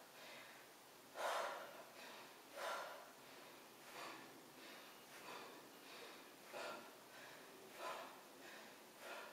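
A woman breathing out in short, faint, hissing puffs, one with each crunch, about every second and a half, in an even rhythm of exertion.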